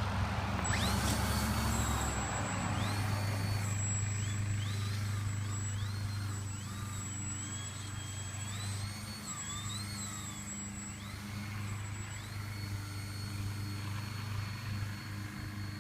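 Electric motor and propeller of a Twisted Hobbys Crack Turbo Beaver RC plane whining in flight, the pitch repeatedly rising, holding and falling as the throttle is worked, over a steady low hum. A rush of noise comes in the first two seconds.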